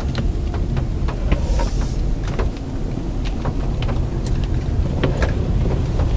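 Road, engine and wind noise inside the cabin of a 2006 Honda Accord automatic on the move: a steady low rumble, with frequent short clicks and knocks scattered through it.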